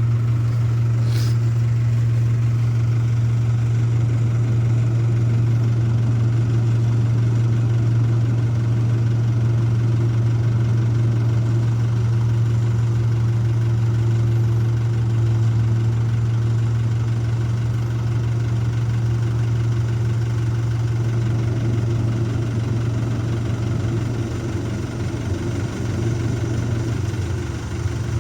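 Engine of a rice combine harvester, the '1545' machine, running steadily as it cuts paddy: a continuous low drone, easing slightly near the end.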